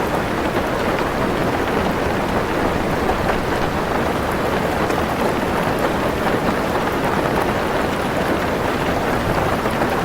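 Heavy rain falling steadily on a car roof, heard from inside the car: a dense, even rush of drops with no break.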